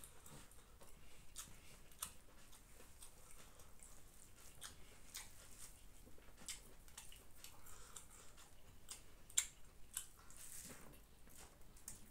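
Faint, irregular soft clicks and squishes of eating by hand: fingers mixing and squeezing chicken biryani rice on a banana leaf, and chewing. One sharper click comes about nine seconds in.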